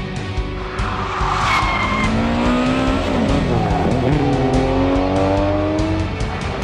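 Rally car engines revving hard and accelerating, rising in pitch, dropping once for a gear change about midway and then climbing again, with a short tyre squeal about one and a half seconds in, over background music.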